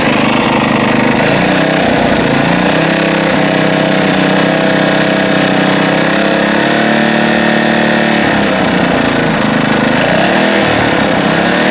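A small engine running steadily. Its speed rises about two to three seconds in and falls back about eight seconds in.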